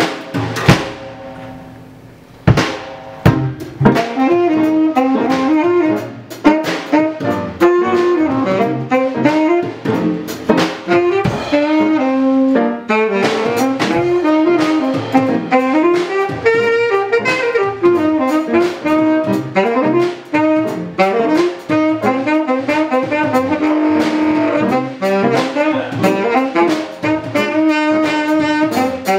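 Small band playing: a saxophone carries a melody over piano and a drum kit. After a few drum hits and a short lull, the saxophone line comes in about four seconds in and runs on with steady drum strokes.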